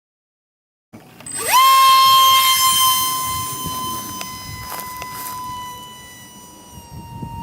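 Brushless electric ducted fan of a micro F-86 Sabre RC jet spooling up: a whine that rises steeply in pitch about a second and a half in, settles into a steady high whine, and fades slowly, dropping slightly in pitch near the end.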